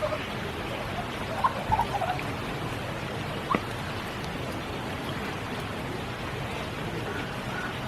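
Steady spring rain falling, a constant even hiss with a few sharper, louder drops about a second and a half to two seconds in and one more near the middle.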